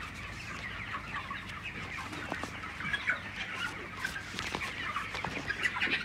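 A large flock of broiler chickens in a poultry shed clucking and chirping, many small calls overlapping.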